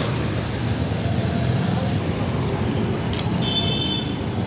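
Steady rumble of road traffic, with a brief high-pitched chirp about three and a half seconds in.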